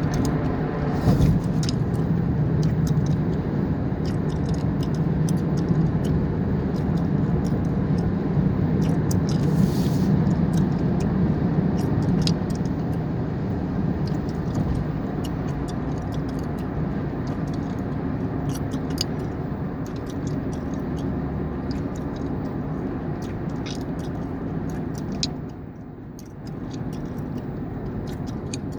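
Steady low rumble of a car's cabin while driving, with many short clicks and smacks of chewing gum close to the microphone scattered over it. The rumble drops briefly near the end.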